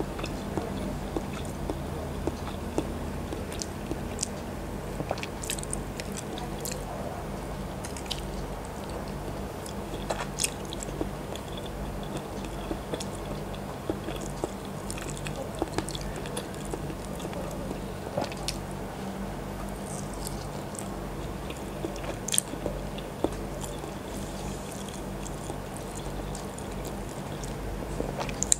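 Close-miked biting and chewing of a boiled chicken embryo egg, an egg that died during incubation: soft, moist mouth smacks and small clicks scattered throughout, over a faint steady low hum.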